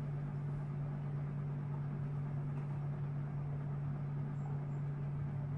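Usha sewing machine running steadily as fabric is stitched: a constant, even hum.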